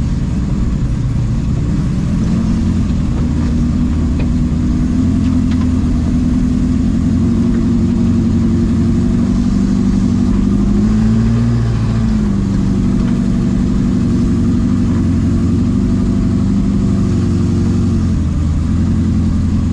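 Engine of an FJ40-based off-road trial buggy heard from inside its open cab, running steadily under load, with a brief rise in revs about halfway through and a short dip near the end.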